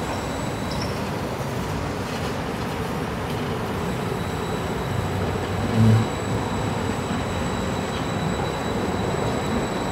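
Street trams passing close by: a steady rolling rumble from wheels on rail, with a thin, high, steady whine over it and a short low thump about six seconds in.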